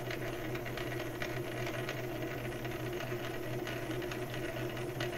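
South Bend 9A metal lathe running with its faceplate and drive dog turning. A steady mechanical hum from the motor and drive, with faint light ticking.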